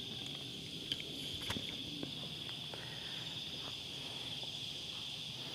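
Steady, high-pitched chorus of insects, with a few faint footsteps on grass.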